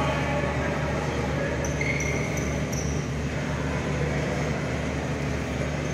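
Gymnasium ambience during a free-throw stoppage: a steady low hum with a faint murmur of voices, and a few short high squeaks about two seconds in.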